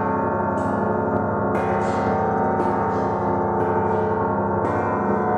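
Bronze plate bells struck with a wooden mallet about once a second, five strikes, each adding to a dense, sustained ringing of many overlapping tones. These are plate bells used as a makeshift stand-in for deep church-bell notes.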